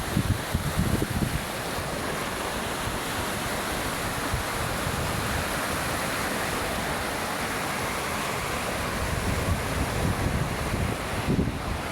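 Waves breaking and washing up the beach in a steady rush, with wind buffeting the microphone at the start and again near the end.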